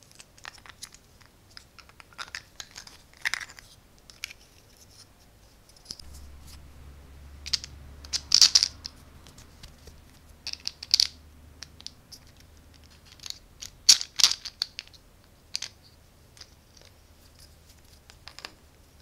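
Plastic handling noises: irregular clicks, taps and scrapes as a digital watch is pressed into a 3D-printed plastic holder and the pieces are fitted together, loudest in bunches about a third and two thirds of the way through. A faint low hum comes in about a third of the way in.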